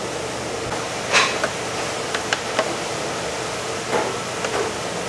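Restaurant background: a steady hum with a handful of short, light clinks and knocks of dishes and utensils, the loudest about a second in.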